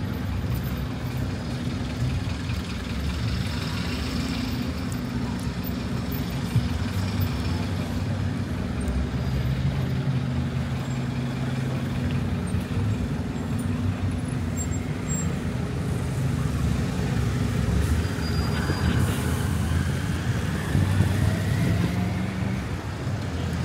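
City street traffic with a heavy vehicle's engine running close by, a steady low rumble. About three-quarters of the way through a rising whine comes in, as of the vehicle pulling away.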